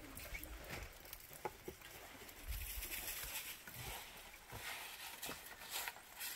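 Faint scattered light taps and patter, with a few low thumps near the middle.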